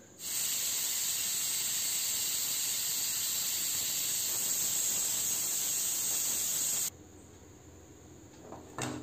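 Stovetop pressure cooker venting steam through its whistle in a steady hiss that cuts off suddenly about seven seconds in, the sign that the cooker has come up to pressure.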